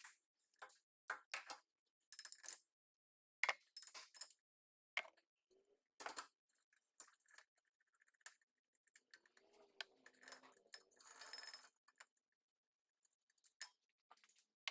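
Scattered light metal clicks and clinks of hand tools and brake hardware as the rear brake caliper mounting bracket and rotor are taken off, with a longer scraping, rasping stretch about ten seconds in.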